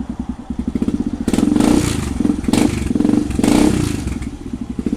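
Kawasaki KSR110's 111cc single-cylinder four-stroke engine through an FMF Powercore 4 full exhaust system with the spark arrestor removed. It idles with an even putter, then about a second in it is revved in three quick throttle blips, dropping back towards idle after each.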